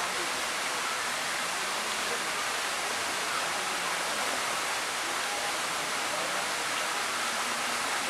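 Vertical jet water fountain: water shooting up and spray falling back, a steady rushing splash.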